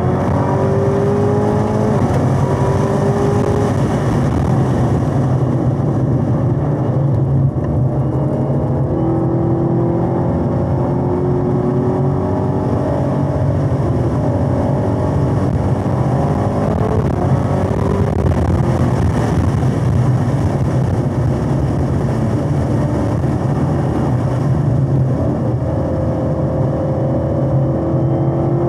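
Supercharged 6.2-litre LT4 V8 of a 2021 Camaro ZL1 1LE driven hard on a race track, its pitch climbing under acceleration and dropping several times as the driver lifts, brakes and shifts for corners.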